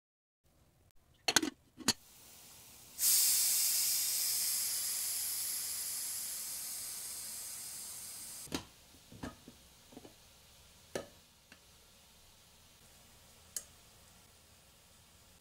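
Pressure cooker letting out its steam as the weight valve is lifted: a sudden loud, high hiss about three seconds in that fades away over some five seconds. A couple of sharp knocks come before it, and a few light clicks and knocks follow as the weight and lid are handled.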